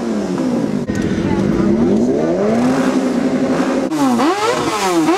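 Sport motorcycle engines revving again and again, the pitch climbing, holding and falling back; near the end the throttle is blipped in quicker, sharper revs.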